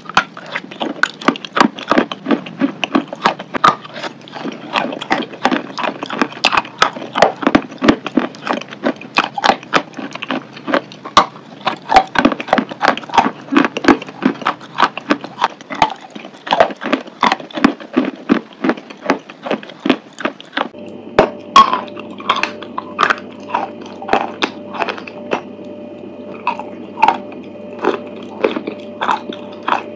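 Close-miked biting and chewing of paste-coated chalk, with sharp crunches several times a second. About two-thirds of the way through, a faint steady hum comes in underneath.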